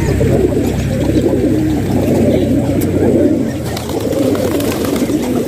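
A flock of domestic pigeons cooing all at once, many overlapping coos making a continuous warbling drone.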